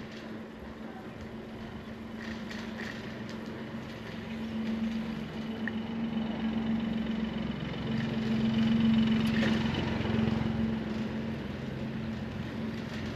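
A motor vehicle's engine running close by, a steady low hum that grows louder to a peak about nine seconds in and then eases off, over street noise.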